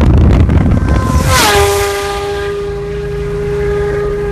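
Supercharged Kawasaki Ninja H2 inline-four passing at high speed, heard from inside a car over its own wind and road rumble. Its note drops sharply in pitch as it goes by about a second and a half in, then holds a steadier tone as it pulls away.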